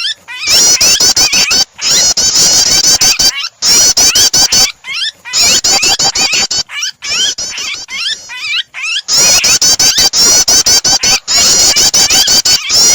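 Prinias (prenjak) chirping mixed with the distress calls of a trapped bird: rapid, loud, high-pitched notes many times a second, in runs of a second or two broken by short gaps.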